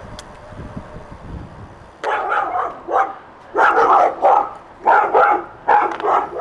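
A dog barking loudly and repeatedly in quick runs of barks, starting about two seconds in, after wind rumbling on the microphone.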